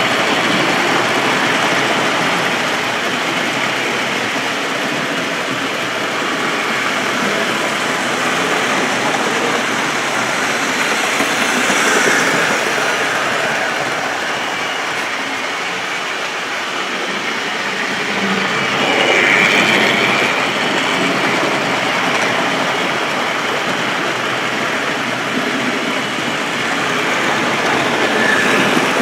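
OO gauge model trains running along the track through the station, a steady mechanical rumble of wheels and motors that swells louder twice as trains pass close by.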